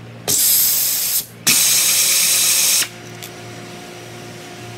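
GWR A1149C-series compact air ratchet wrench run twice on a bolt, each burst about a second long, its air motor and exhaust giving a loud hiss.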